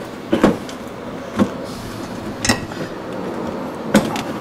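Four sharp plastic clicks and knocks, about a second apart, from a plastic filler trim panel on a GMC Sierra's front end being pulled and flexed by hand against its retaining clips.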